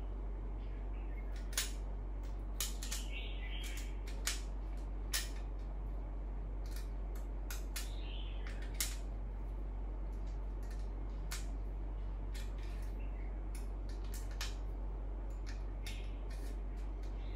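Irregular sharp clicks and taps as a set of steel HSS drill bits is handled and packed back into its case and the case is closed, over a steady low hum.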